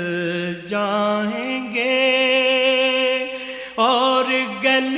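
Solo voice singing an Urdu naat, drawing out the words "jayenge" and "aur" in long held notes that waver and slide between pitches.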